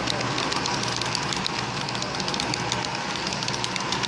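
HO scale model freight cars rolling past close by, their metal wheels clicking on the track in a quick, uneven patter over a steady rolling rumble.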